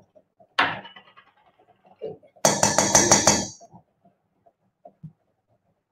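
A metal spoon clinks against a container as mayonnaise is scooped out and added to the salad. There is one knock about half a second in, then a quick run of about ten clinks lasting about a second near the middle.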